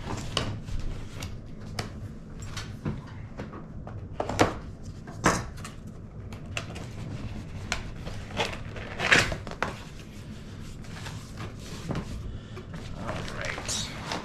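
Cardboard shipping box being opened by hand: scattered knocks, scrapes and rustles of the packaging, with a few sharper clicks.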